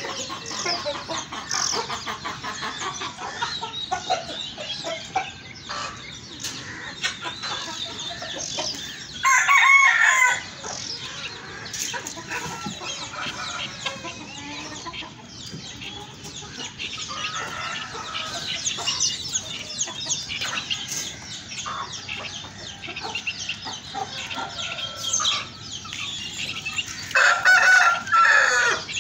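Backyard chickens clucking and calling continuously, with a rooster crowing twice, about nine seconds in and again near the end; the crows are the loudest sounds.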